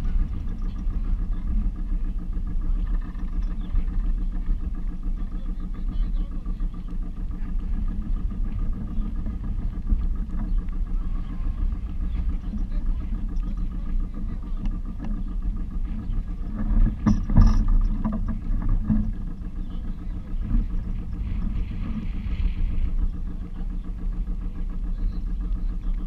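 A small motorsailer's inboard engine running steadily at idle, a low hum. About two-thirds of the way through, a short burst of louder knocks rises over it.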